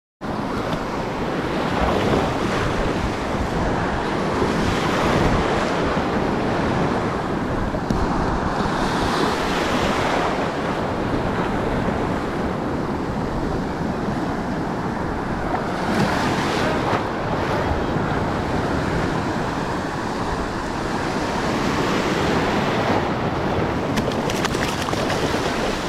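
Surf washing on a beach, with wind blowing across the microphone: a steady, loud rush of noise.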